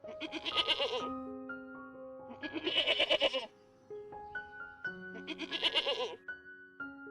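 Three bleats, each about a second long with a fast quaver, spaced about two and a half seconds apart, over background music with held keyboard-like notes.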